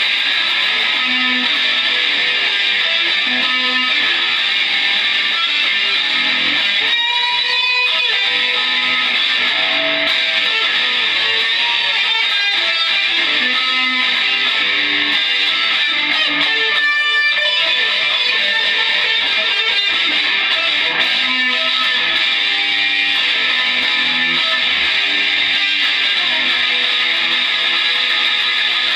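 Electric guitar played loud as noise music: a dense, harsh, unbroken wash with shifting low notes beneath it and wavering pitch sweeps about seven and seventeen seconds in.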